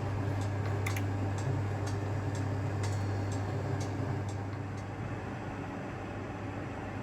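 Balmuda microwave oven running with a steady low hum, with scattered light ticks during the first few seconds.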